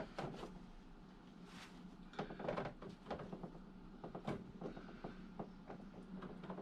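Scattered light clicks and knocks of small parts and hand tools being handled, over a faint steady hum.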